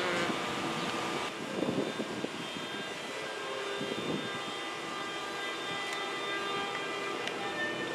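NJ Transit ALP-46-series electric locomotive rolling slowly into the station, a steady running hum with several steady whining tones from its motors and blowers.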